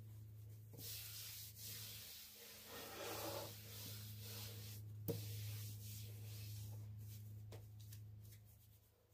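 A cloth is rubbed back and forth across a wood-grain tabletop, a steady rubbing that fades out near the end, with one light knock about halfway through.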